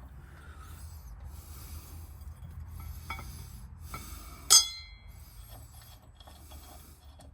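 Metal tensioner parts being worked into place by hand: faint scraping and rubbing with a few small clicks, then one sharp metallic clink about halfway through that rings briefly.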